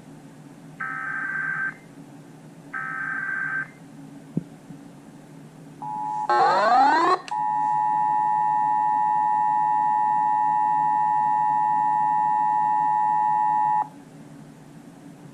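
Emergency Alert System signal over a broadcast: the last two bursts of the buzzy SAME data header, a click, then the two-tone attention signal (853 and 960 Hz). The attention signal opens with a short rising, warbling glitch, then holds steady for about six and a half seconds before cutting off.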